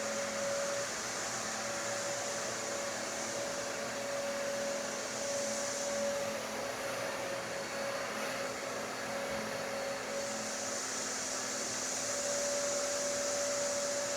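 Hampton Bay Mainstays ceiling fan running, a steady whir with a constant hum. A high hiss in the whir fades away about six seconds in and returns about ten seconds in.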